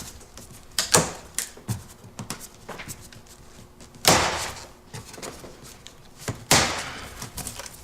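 Plastic packing straps on a cardboard shipping box being cut with a craft knife, each snapping loose and slapping against the box: three sharp snaps, about a second in, about four seconds in and near the end, with lighter taps and rustles between.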